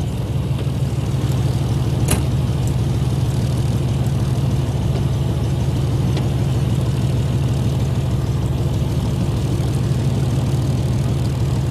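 Fishing boat's engine running at a steady idle, a low, even hum, with one sharp click about two seconds in.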